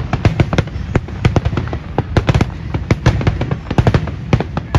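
Fireworks: a dense barrage of aerial shells bursting, several sharp bangs a second overlapping irregularly over a low rumble.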